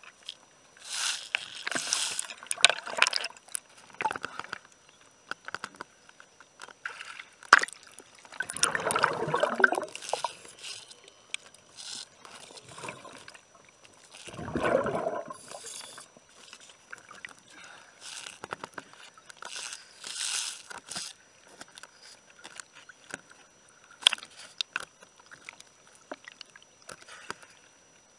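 Underwater recording during hull cleaning: a tool scrapes marine growth off a boat's hull, with irregular scraping and clicking. Two longer gurgling rushes, about 8 and 14 seconds in, are the diver's exhaled air bubbles.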